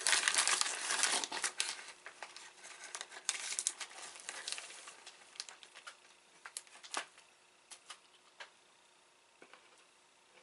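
Plastic snack wrapper crinkling and tearing as it is opened: dense crackling for the first two seconds, another burst of crinkling around the fourth second, then only a few scattered crackles and clicks.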